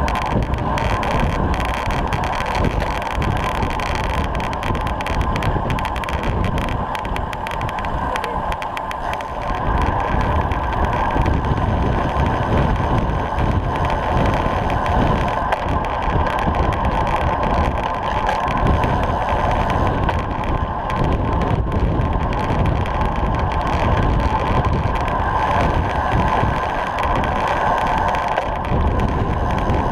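Steady rush of wind on the microphone and tyre noise on tarmac from a road bicycle travelling at about 30 mph in a bunch.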